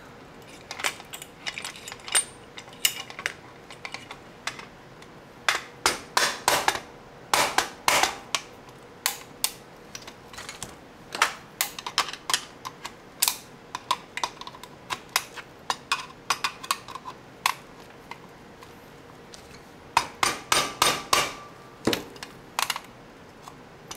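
Irregular clusters of sharp clicks and knocks as a flat-blade screwdriver is forced into the seam of a plastic battery charger case, prying and cracking the plastic, with short pauses between bursts.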